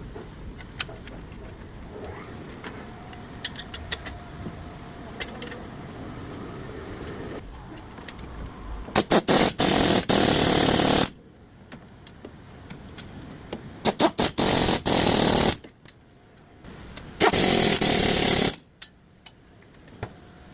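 A power tool run in three loud bursts of one to two seconds, each started with a few short blips of the trigger, with scattered clicks of tools before them.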